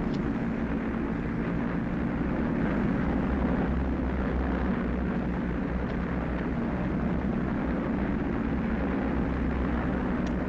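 Steady drone of Vickers Wellington bomber engines in flight: a low hum under a rushing noise, unchanging in level.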